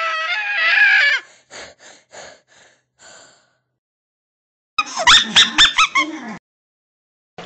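Talking Tom cartoon cat's high-pitched scream, cutting off about a second in, then a quick run of about five soft taps that fade. After a short gap comes a burst of sped-up, high-pitched cartoon voice.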